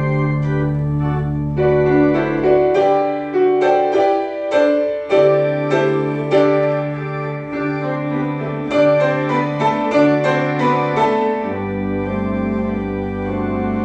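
Piano and organ playing an instrumental passage with no singing: piano notes struck one after another over held chords. The deep bass notes drop out about three seconds in and come back near the end.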